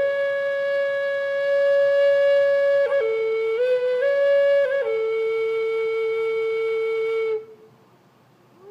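Native American flute playing a slow solo phrase: a long held note, a few short steps up and down in pitch, then a long lower note that stops about three-quarters of the way through, leaving a pause.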